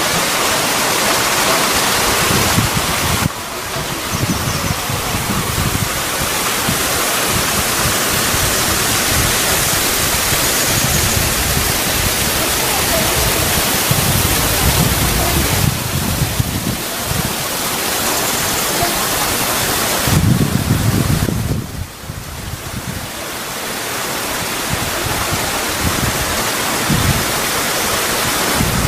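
Steady loud rush of water, a mountain stream or waterfall, as an even hiss across all pitches. Irregular low rumbles from wind buffeting the microphone run underneath, and the rush drops briefly about three seconds in and again near twenty-two seconds.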